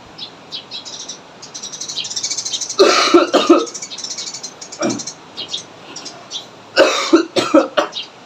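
A man coughing on purpose: two forceful coughs about four seconds apart, each broken into quick pulses, with a short lighter burst between them. These are the paired coughs of the effective-cough technique. The first moves phlegm up from the larger airways and the second pushes it out through the mouth.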